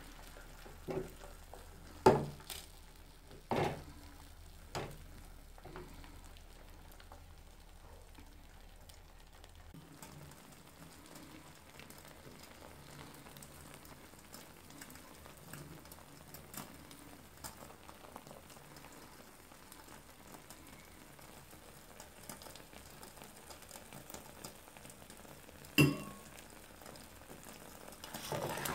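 Beaten eggs frying in a metal pan with a faint, steady sizzle. A few sharp knocks come in the first five seconds and another near the end.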